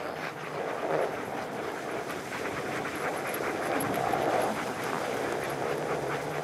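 A sled dog team running through snow: a steady rough crunching and scraping of paws and sled runners on the snow, with the dogs panting.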